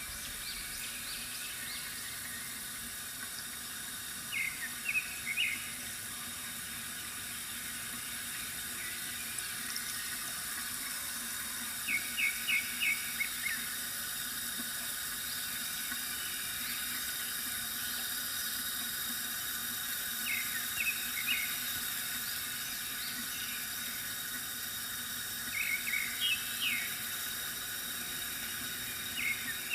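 Water trickling steadily from a bamboo fountain, with short runs of three to five quick bird chirps recurring every five to eight seconds.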